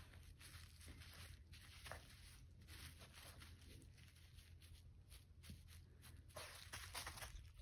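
Faint, irregular rustling and scuffing of a puppy mouthing and pawing a rope toy on artificial grass, over a steady low rumble.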